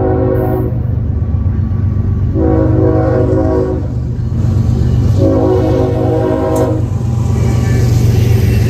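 Freight train's diesel locomotives approaching and passing close by, the engines rumbling steadily. The horn sounds in long blasts: the tail of one just at the start, then two more of about a second and a half, a couple of seconds apart. Wheel and rail noise rises near the end as the locomotives come alongside.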